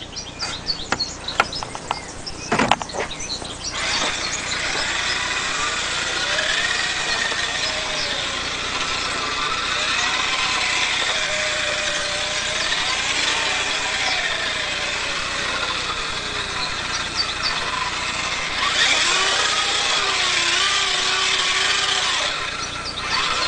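The small 180-size brushed electric motor of a homemade 1:16 RC drift car whines, its pitch rising and falling as the throttle changes, over a steady hiss. A few sharp clicks and knocks come in the first few seconds.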